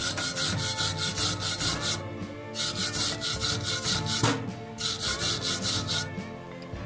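A hand file rasping quickly back and forth across a weld bead on thin square steel tube, about five strokes a second, in three runs with short pauses about two seconds and four and a half seconds in. Background music plays underneath.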